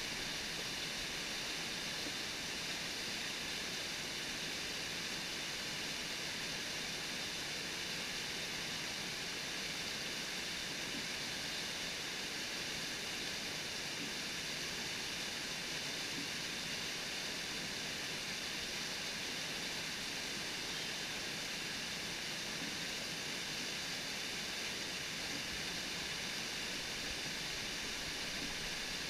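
Mountain torrent rushing over rocks through white-water rapids: a steady, even rush of water.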